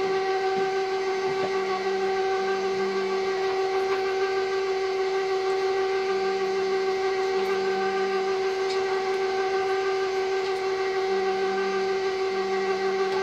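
KitchenAid stand mixer running steadily with its meat grinder attachment, grinding chunks of lamb and steak: an even motor whine with no change in speed.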